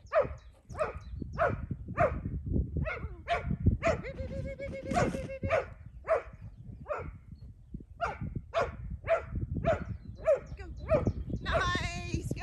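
A dog barking over and over in short, falling barks, nearly two a second, with one longer drawn-out call in the middle.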